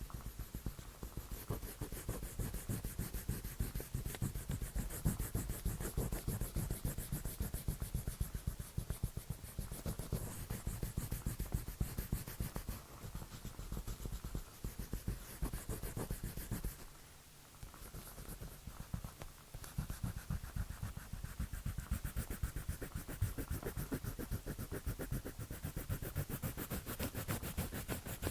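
Drawing tool scratching on paper in rapid back-and-forth strokes, with a short pause about 17 seconds in.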